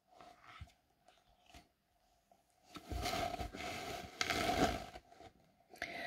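A page of a paper picture book being turned by hand: a soft rustling scrape of paper about three seconds in, lasting about two seconds, over a faint steady hum.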